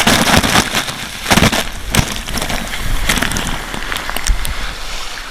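Loud rush of water spray and air during a descent down a near-vertical speed water slide, with many short spattering hits through it. It eases off toward the end.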